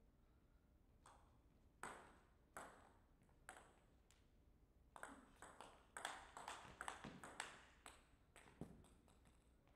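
Table tennis ball clicking: a few slow taps as the ball is bounced before the serve, then a rally of quick sharp clicks as the ball strikes rackets and table for about four seconds.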